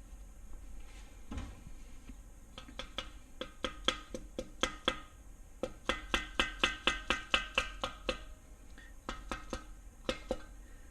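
Light mallet taps seating a main bearing shell flush in an LS engine block's main saddle. The sharp, slightly ringing knocks come scattered at first, then quick, about six a second, through the middle, and thin out near the end.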